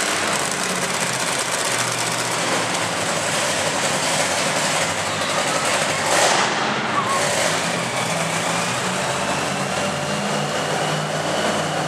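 Monster truck engines running at low revs, a steady engine rumble with the pitch shifting up and down, and a brief louder rush of noise about six seconds in.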